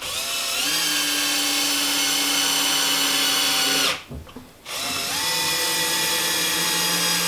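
Power drill-driver driving screws into wood: two runs of steady motor whine, each spinning up over the first moment. The first run stops about four seconds in, there is a light knock, and the second run starts under a second later.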